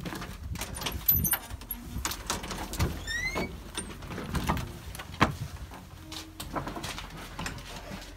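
Footsteps, knocks and handling noise of someone going in through a house door, with a short rising squeak about three seconds in.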